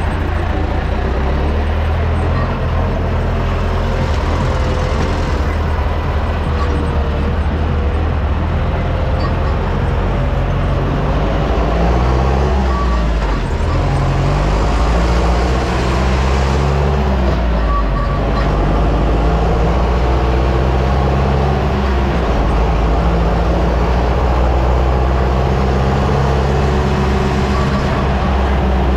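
Ursus tractor's diesel engine running steadily under way. Its speed dips and picks up again twice around the middle.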